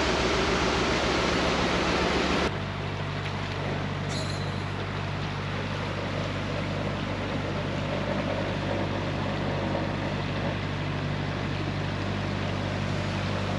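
Narrowboat's diesel engine running steadily under way, with a fast regular chug. About two and a half seconds in the sound cuts abruptly to a quieter, smoother run of the engine.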